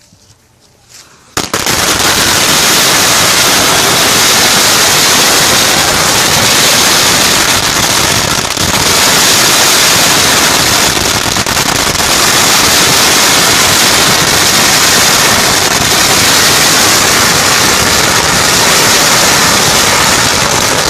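A string of 16,000 firecrackers going off as one dense, unbroken crackle of rapid bangs, very loud, starting about a second and a half in.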